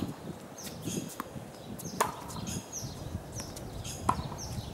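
Tennis racket hitting a ball back and forth in a rally, three sharp pops about two seconds apart, each with a short ringing tone, and fainter ball bounces on the hard court between them. Birds chirp high in the background.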